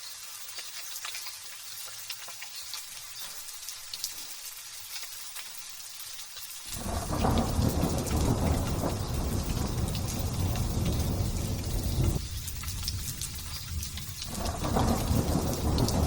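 Light drizzle hissing steadily, then about seven seconds in a roll of thunder sets in abruptly and rumbles on deep and heavy, easing for a couple of seconds and swelling again near the end.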